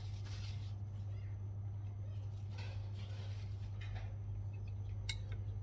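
Quiet eating sounds from a bowl of curry noodles, with a single sharp clink of cutlery about five seconds in, over a steady low hum.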